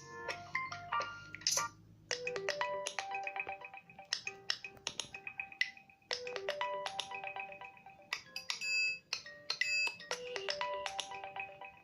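LG K40S smartphone ringtone: a short melody of quickly fading notes, the phrase repeating about every four seconds, then stopping.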